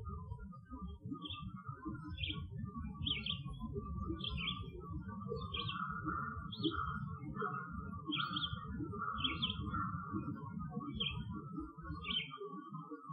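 Forest birds chirping: one repeats a short, high chirp about once a second, over fainter, busier twittering lower in pitch. A steady low rumble runs underneath.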